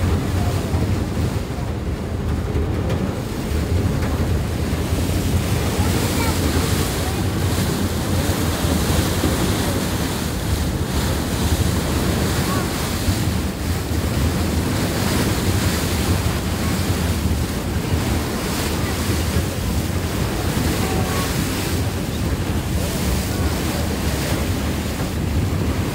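Steady rush of water churned along the hull of a moving ferry, with wind buffeting the microphone.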